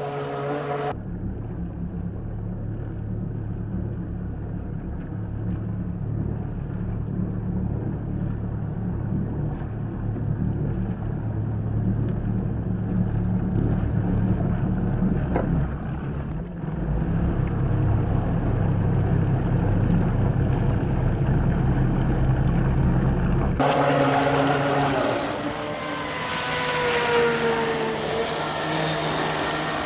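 Small radio-controlled model boat's brushless motor running as it speeds across the water. For most of the stretch the sound is muffled under a low rumble. About three-quarters of the way through it comes through clearly as a whine that rises and falls in pitch, with the boat up on its aluminium hydrofoils.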